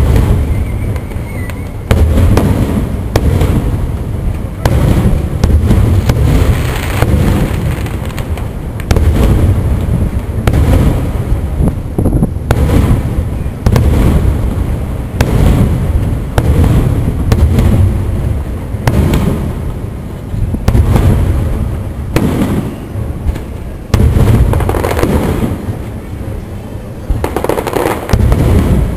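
Aerial firework shells bursting one after another, a deep boom every second or two, each trailing off into a low rumble before the next.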